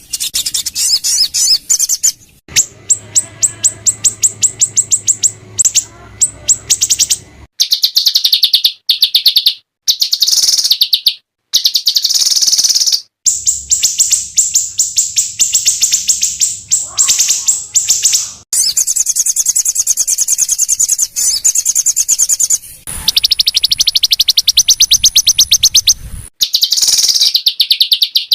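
Small songbirds giving fast, harsh runs of high-pitched notes, many per second, in a spliced bird-training (masteran) recording, with sudden cuts from one clip to the next.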